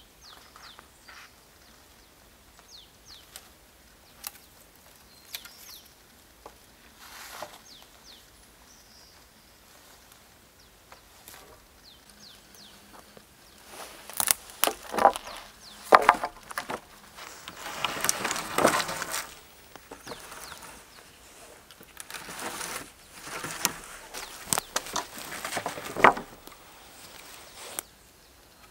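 Dead wooden poles being handled and set in place, with sharp knocks of wood on wood and rustling and scraping through branches and moss. These come in clusters over the second half, with the loudest knocks about halfway through and near the end. A few faint bird chirps sound in the first half.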